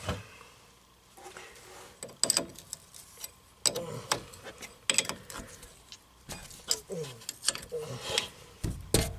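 Scattered metallic clicks and knocks of hand tools and brake parts being handled while a brake caliper's banjo fitting is refitted, with a low rumble of handling noise coming in near the end.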